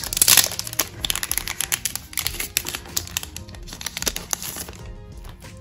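Packaging crinkling and rustling as a set of photo cards is unwrapped and handled: a rapid run of crackles and clicks, densest at first, then thinning out.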